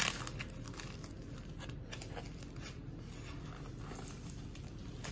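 Light rustling and a few small clicks of things being handled at a kitchen counter, over a low steady background hum.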